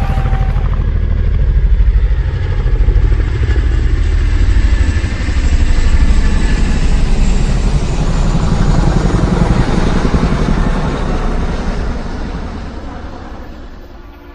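Deep engine rumble of a passing motor vehicle, swelling in the first couple of seconds, holding loud, then fading away over the last few seconds.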